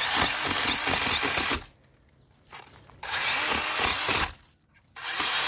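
DeWalt cordless pole saw's chain running in three short bursts as it cuts shrub stems at the base, each burst a dense buzzing over a wavering motor whine, with quiet pauses between.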